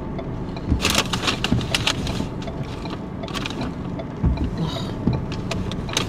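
Passing cars going by fast, heard from inside a stopped car as several short tyre-and-engine swooshes over the low rumble of the car's own cabin. The longest swoosh is about a second in, and a few shorter ones follow.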